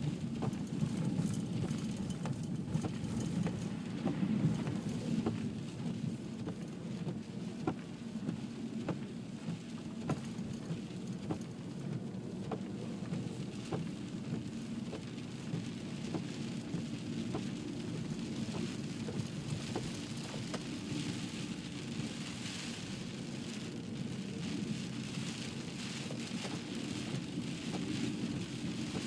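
Car driving slowly on a snow-covered road, heard from inside the cabin: a steady low rumble of engine and tyres, with scattered irregular clicks and crackles.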